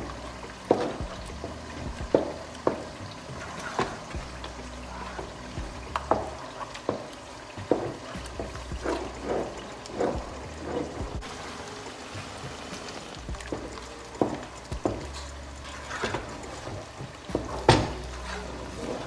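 A wooden stirring stick working thick banku dough of fermented corn and cassava in a metal pot: irregular squelches and knocks against the pot, about one a second, with the loudest knock near the end.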